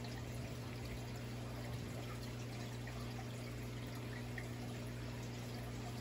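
Aquarium water bubbling and trickling steadily from the tank's air stream, with a low steady hum underneath.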